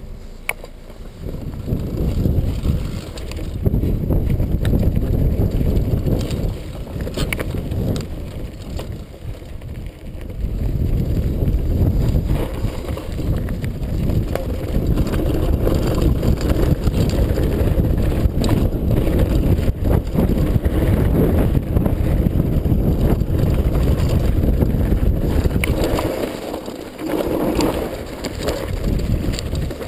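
Downhill mountain bike rolling fast over loose gravel and rock, with a steady rumble of tyres and wind buffeting the microphone, and many quick rattles and knocks from the bike over bumps. It builds up about a second in as the ride starts and eases briefly near the end.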